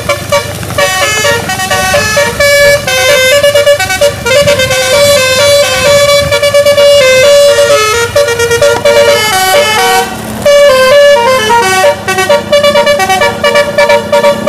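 A bus's telolet musical air horn playing a quick melody, its notes jumping between pitches in rapid steps, with a couple of short breaks.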